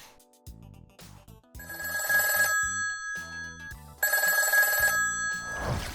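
Classic telephone bell ringtone: an old-style phone bell rings in two bursts of about a second each, over soft background music.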